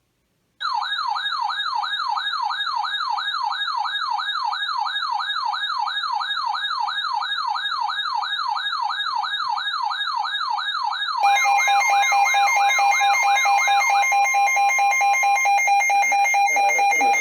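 Electronic warbling siren tone, sweeping up and down about three times a second, starting about half a second in. About eleven seconds in, a louder steady two-tone alert starts: the Emergency Alert System attention signal, which sounds on after the warble fades out a few seconds later.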